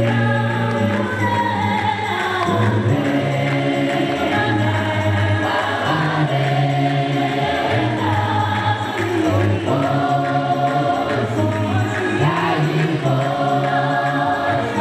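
Gospel song: a choir singing in several parts over instrumental backing with a steady bass line.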